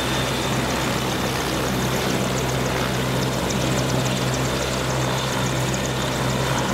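AgustaWestland AW101 Merlin helicopter's three turboshaft engines and rotor running steadily, with a thin high turbine whine over a deep steady hum.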